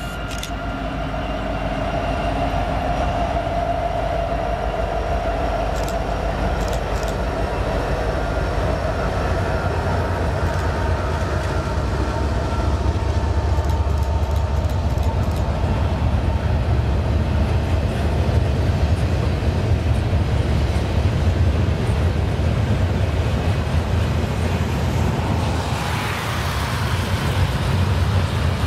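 Norfolk Southern freight train passing close by. For the first several seconds the diesel locomotives go past with a whining tone that fades as they move off. After that, the double-stack container cars roll by with a steady low rumble, and there is a short rise in hiss near the end.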